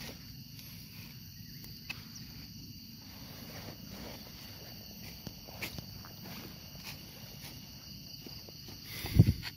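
Steady high chirring of insects, crickets or similar, with the rustle of footsteps on dry leaf litter. A loud thump about nine seconds in.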